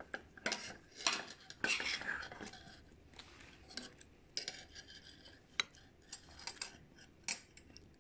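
Eating utensils clinking and scraping against a dish. There is a busy run of scrapes and clicks in the first couple of seconds, then single clicks every second or so.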